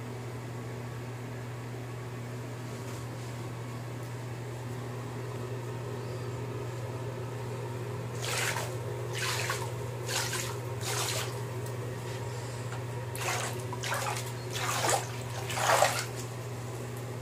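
Bathwater in a tub being swished and splashed by hand: from about halfway through, a run of four swishes roughly a second apart, then after a short pause four more, the last the loudest. A steady low hum runs underneath.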